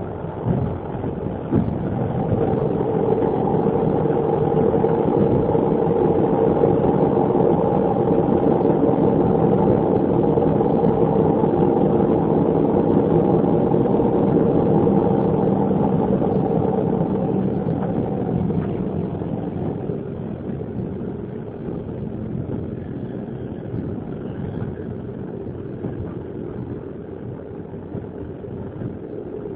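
Passenger train running along the track, heard from inside a carriage: a steady rumble of wheels on rails with a humming tone, loudest in the first half and gradually quietening in the second half.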